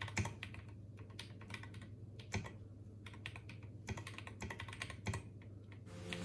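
Typing on a mechanical keyboard: irregular, quick key clicks over a steady low hum.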